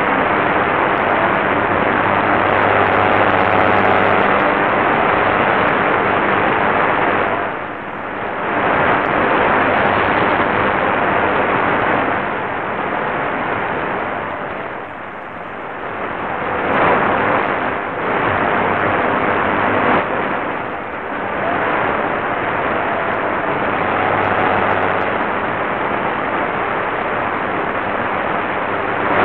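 Qodosen SR-286 portable radio's speaker hissing with medium-wave static while tuned to a weak, distant AM station on 756 kHz. The noise dips and swells several times as the signal fades in and out.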